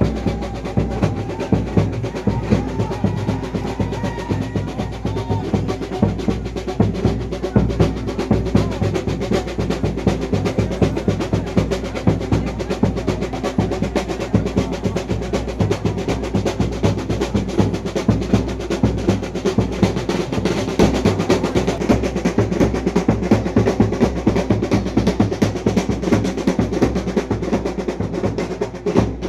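A festival drum ensemble playing fast, unbroken drumming: a dense roll of strokes at a steady level with no pause.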